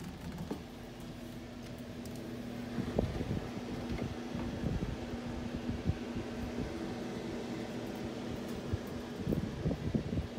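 A steady mechanical hum with a held low drone, under irregular low thumps from about three seconds in: footsteps on the wooden companionway steps and in the cabin.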